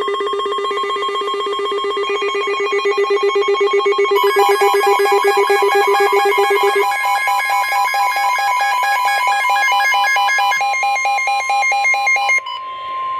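Emergency alert tones: a loud electronic trill of several rapidly pulsing tones that step in one after another and build up, like an electronic bell ringing. The lowest tone drops out about seven seconds in. Near the end the trill cuts off and gives way to one steady high tone, the NOAA Weather Radio 1050 Hz warning alarm tone.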